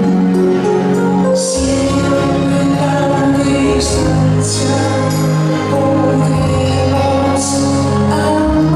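A song with singing over a steady bass line that comes in about a second and a half in, with short bright cymbal-like splashes every few seconds.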